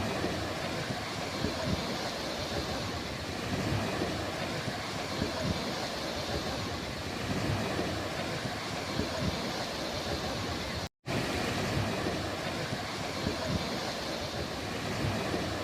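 Ocean surf washing on the shore, mixed with wind rumbling on the microphone; the sound cuts out for an instant about eleven seconds in.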